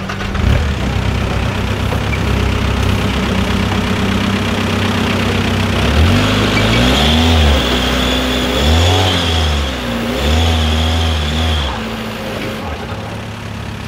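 Engine of a Jeep-bodied ProModified trial 4x4 crawling up a rock-and-root step: it runs steadily at low revs, then about halfway through is revved up and down in three bursts, with a hiss during the revs, before settling back.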